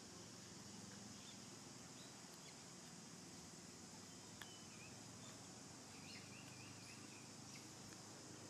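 Near silence of outdoor ambience: a steady faint high hiss, with a faint bird trill about six seconds in and a small click a little before it.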